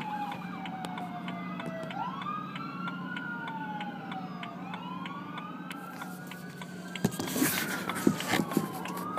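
Several police car sirens wailing at once, their pitches slowly rising and falling and overlapping, while the car's hazard-light flasher ticks steadily. About seven seconds in, loud rustling and knocks from the phone being handled cover the sirens.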